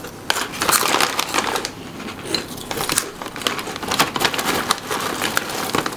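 Crunchy snack being chewed close to the microphone: an irregular run of crisp crunches and small crackles.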